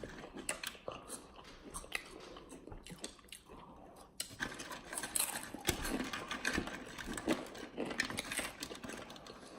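Crunchy chips being chewed: irregular crisp crunches and chewing noises.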